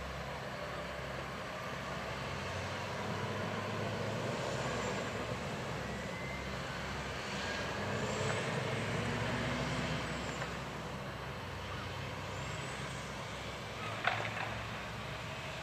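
Large engine idling with a steady low hum that swells slightly in the middle; a sharp click about fourteen seconds in.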